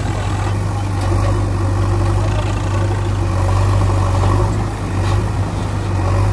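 Heavy machine's engine idling steadily: a low, even rumble, a sound effect laid over plastic toys that have no motor.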